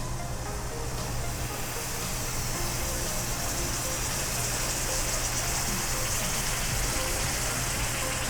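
Sizzling brownie hissing on a hot sizzler plate, a steady frying hiss that swells about a second in.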